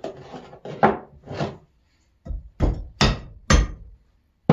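Hammer blows on a part of an old rusty vice being taken apart: about eight uneven strikes, the last one the loudest.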